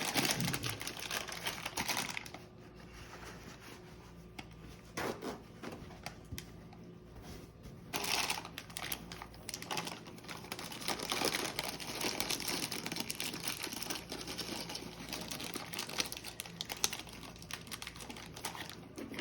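Plastic crinkling and rustling in irregular bursts as it is handled, with small clicks, louder about eight seconds in and again a little later.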